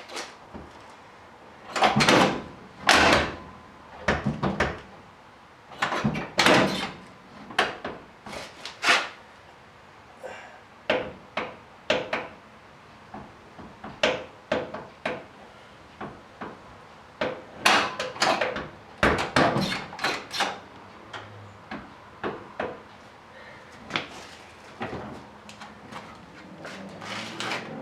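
Driver's door of a 1985 GMC squarebody pickup being opened and shut several times, giving a series of sharp clunks and latch clicks as a newly rehung door is checked against its striker.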